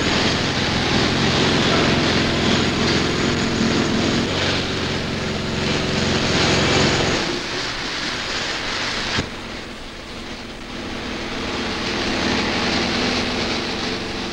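Steady machinery drone with a hiss over it. The low drone drops away about seven seconds in, a sharp click comes about two seconds later, and a lighter rumble and hiss carry on.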